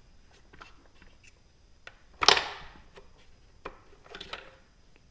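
Plastic intake manifold of a 5.3 L LS V8 being handled on a workbench: scattered light clicks and taps, with one louder knock a little over two seconds in.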